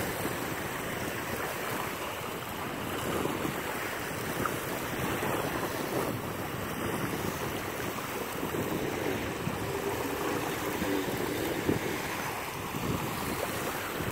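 Wind buffeting the phone's microphone over small waves lapping on a sandy shore: a steady noise throughout.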